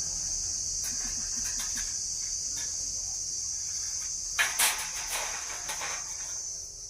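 A steady high-pitched insect chorus, crickets or similar, with a few sharp knocks scattered through it, the loudest two close together about four and a half seconds in.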